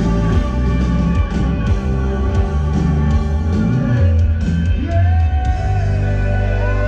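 Thai rock band playing live through a stadium PA, with a male lead singer. Near the end the music settles into a steady held chord.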